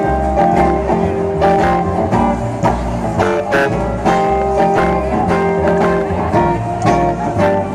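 Live swing music played by a duo of archtop guitar and upright double bass, with plucked guitar chords over a steady bass line.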